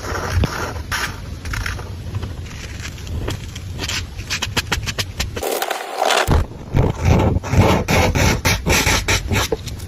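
Drawing strokes scratching on paper, with a quick run of short, sharp strokes in the last few seconds, over a low rumble.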